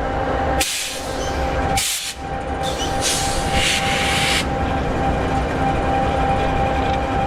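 EMD 16-710G3B sixteen-cylinder two-stroke diesel idling steadily in an SD60E locomotive, with a few short bursts of hiss in the first half.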